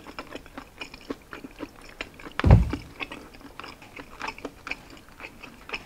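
Close-miked chewing of crispy roasted pork belly (liempo): a run of many small clicks and crunches, with one low thump about two and a half seconds in.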